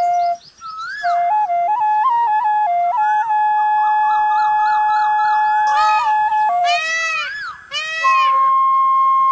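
Bansuri, the Indian bamboo flute, playing a ringtone melody of short stepped notes with one long held note in the middle. About seven seconds in, two short bursts of rapid warbling break in, then the flute goes on with a high held note.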